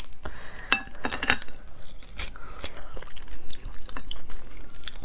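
Shell of a large cooked mantis shrimp being cracked and pulled apart by hand, giving a scatter of sharp crackles and clicks, mixed with close-up biting and chewing of its meat.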